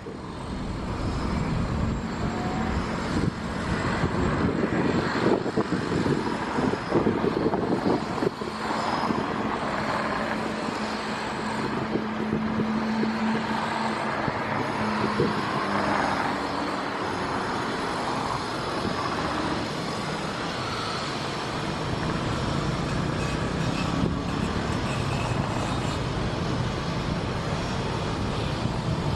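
Street traffic: a steady wash of passing vehicle engines and tyre noise, with an engine hum swelling in the middle.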